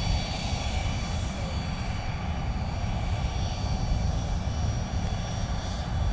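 Small jet aircraft's engines running at idle: a steady high whine over a continuous low rumble.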